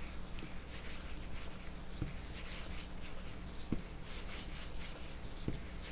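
An 8 mm crochet hook working thick yarn through single crochet stitches: soft rubbing and scratching of yarn drawn through the loops, with a few faint ticks.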